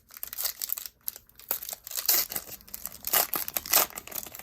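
Foil card-pack wrapper crinkling as baseball cards are handled, an irregular crackle with louder crinkles about two, three and nearly four seconds in.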